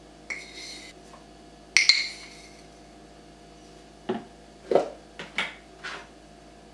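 Metal measuring spoon scraping and clinking against a glass jar of instant coffee, with one sharp ringing clink about two seconds in. Then about five short knocks and taps as the spoon is tapped on the blender jar and the jar is set down on the counter.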